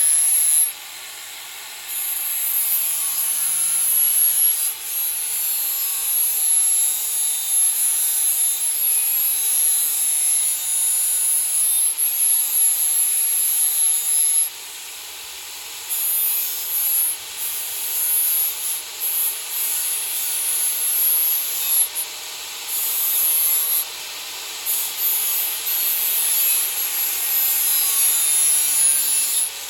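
DeWalt power sander grinding a steel machete blade to sharpen it, a steady abrasive hiss with a high whine. It drops away briefly several times, about a second in, around the middle and twice later on.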